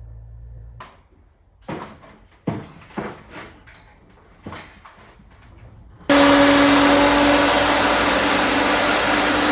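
A handful of metal clanks, then about six seconds in a Vevor magnetic drill's motor starts and runs loud and steady at one pitch, drilling a hole through a steel I-beam.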